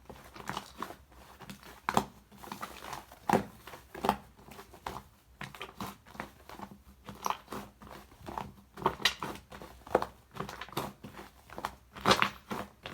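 Fluffy shaving-foam slime being squished and worked by hand, giving soft, irregular crackling clicks several times a second.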